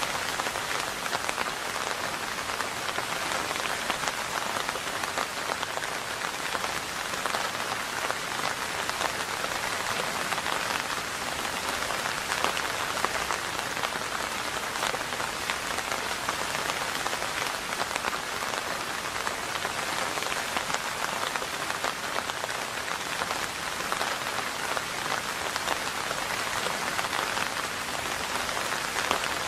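Steady rain falling, an even, dense patter of drops.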